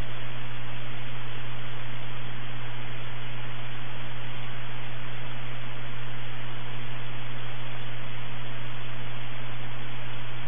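Airband radio receiver's steady static hiss with a constant low hum underneath, with no transmission coming through.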